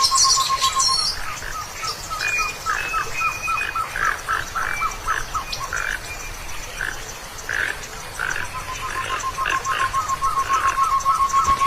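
Wild animals calling in chorus. A fast, steady trill holds one pitch at the start and returns past the middle, over many short, repeated chirps and calls.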